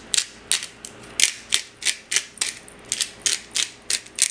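Pepper grinder being twisted back and forth, peppercorns cracking in short gritty crunches, about three or four a second.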